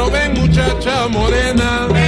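Salsa music: an instrumental passage between the sung verses, with a bending melody line over bass and percussion.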